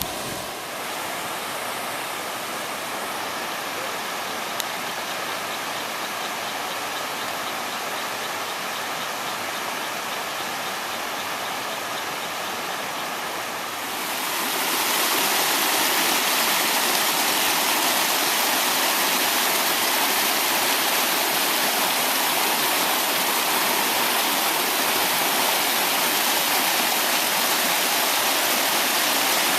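Water rushing steadily over a river's waterfall, as an even hiss. It gets noticeably louder about halfway through and stays at that level.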